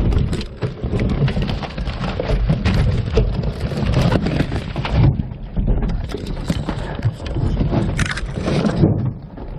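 Close handling noise: rustling, scraping and knocks right at the onboard camera's microphone as it is moved about against the car's bodywork. There is a brief lull about five seconds in and a sharper scrape about eight seconds in.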